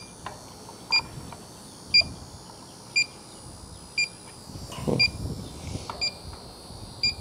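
Handheld electronic refrigerant leak detector beeping steadily about once a second while its probe is moved over the coil joints of an AC condenser. The slow, unchanging rate is typical of the detector not sensing refrigerant. A brief low rustle comes about five seconds in.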